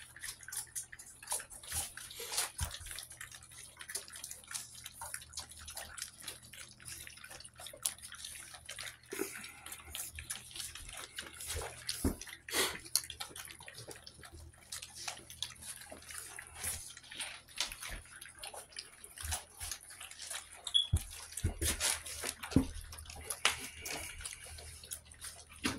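Four-week-old American Bully puppies eating soft wet puppy mush from a foil pan, their first solid food: a continuous run of irregular wet lapping, slurping and smacking clicks.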